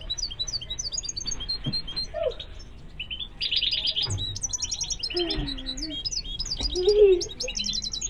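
Caged European goldfinches twittering, with rapid high chirps and trills overlapping throughout. A few low wavering sounds sit underneath, the loudest about seven seconds in.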